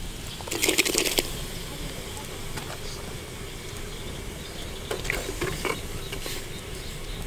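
Chunks of eel tipped from a leaf into a clay pot of hot water, with a brief splash and clatter about half a second to a second in. A few soft knocks follow about five seconds in.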